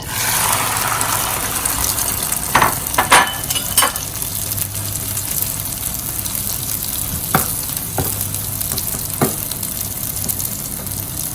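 Cha-om (acacia leaves) frying in hot oil in a pan with a steady sizzle. A spatula taps against the pan several times, a few around the third and fourth second and a few more later.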